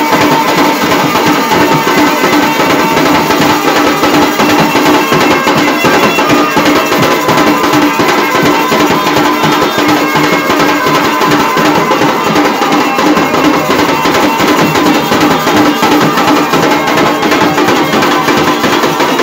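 Traditional Indian village drum band (baja party) playing a fast, dense rhythm on a large cloth-wrapped drum and white-headed drums struck with thin sticks. A steady held tone runs under the drumming.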